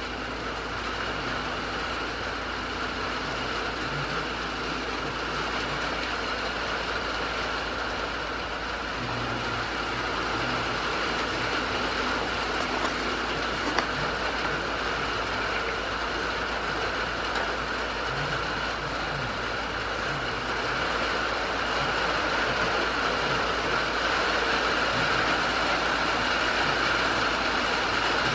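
Steady hiss of rain falling on a wooden shed roof, growing slightly louder toward the end, with one small click about halfway through.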